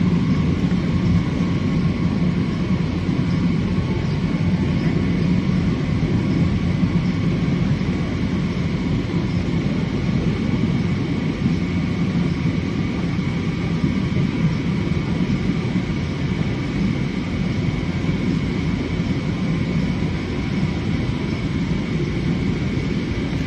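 Steady engine and airflow noise inside a jet airliner's cabin during the climb after take-off: a low rumble with faint steady whines above it.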